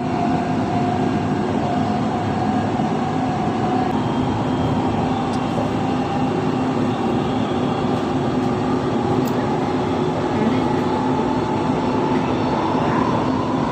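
Dubai Metro train running, heard from inside the carriage: a steady rumble of wheels on rail with a motor whine whose pitch climbs a little near the end.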